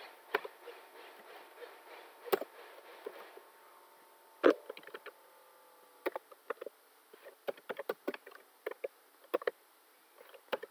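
Typing on a computer keyboard: scattered keystrokes, one louder click about halfway, then quick irregular runs of keystrokes in the second half. A faint steady hum runs under the first half.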